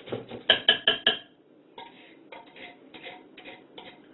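A kitchen utensil knocking against a container: four quick ringing taps about half a second in, then lighter clicks and scrapes, as soup is scraped out and tapped off the spoon.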